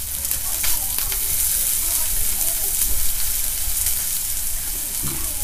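Sliced eggplant and sausages sizzling steadily on an electric hot plate, with a few light clicks of chopsticks against the food and plate.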